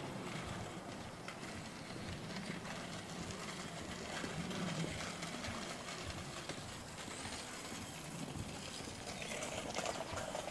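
Footsteps on pavement with a steady background of distant traffic.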